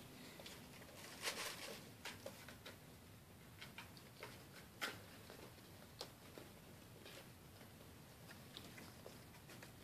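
Kittens scrambling and tussling in a towel-lined wicker basket: faint scattered rustles and light clicks of paws and claws on wicker and towel, with a few sharper clicks.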